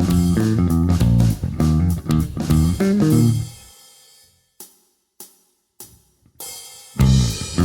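Strandberg Boden five-string electric bass played with a pick on both neck and bridge pickups through an amp simulation: a run of low picked notes that stops about three seconds in and rings away. After a pause with a few faint clicks, the picked notes start again loudly near the end.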